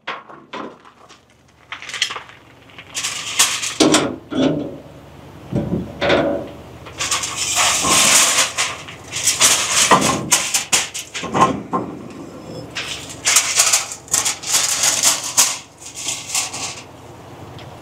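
Aluminium foil crinkling and metal racks and a pellet tray clattering inside an electric smoker cabinet as the foil is moved and the smoking pellet tray is set on the bottom shelf. The clatter is irregular, with long crinkly stretches.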